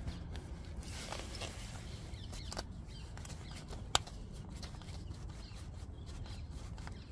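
Close handling noises: jacket sleeve fabric rubbing near the microphone and small clicks and scrapes from hands working on motorcycle engine parts, with one sharp click about four seconds in. A low steady hum runs underneath.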